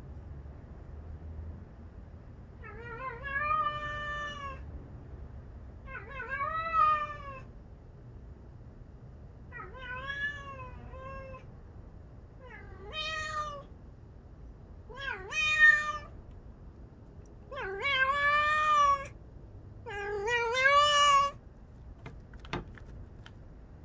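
A domestic cat meowing repeatedly: seven drawn-out meows, each rising then falling in pitch, every two to three seconds and growing louder. A single sharp click follows near the end.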